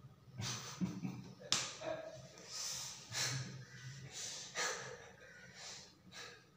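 A person's heavy, uneven breathing: about seven ragged, breathy gasps and exhalations at irregular intervals, over a faint steady low hum.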